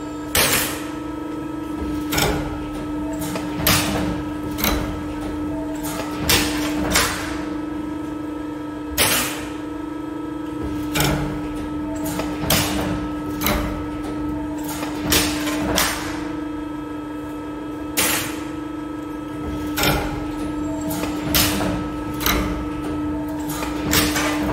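Press brake's hydraulic power unit humming steadily while a long sheet-metal strip is bent, with sharp metallic knocks every second or so, often in pairs, from the bending strokes and the strip being handled in the die.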